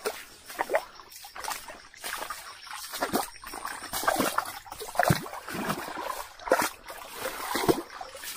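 Water splashing and sloshing in irregular splashes as someone wades along a shallow, rocky stream.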